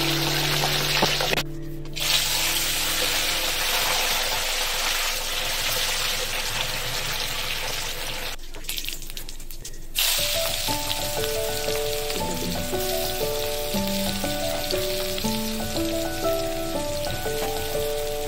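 Hot oil sizzling steadily in a frying pan, cutting out briefly twice, with background music of short stepped melody notes coming in about halfway through.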